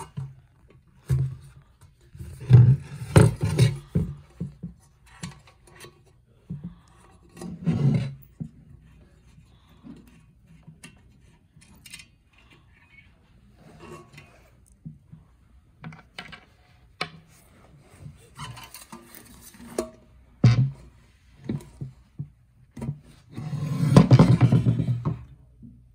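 Buffalo 30L stainless steel pressure cooker lid and its valve parts being handled while the silicone valve seal is worked out: scattered knocks, clicks and rubbing, with a longer, louder stretch of rubbing near the end.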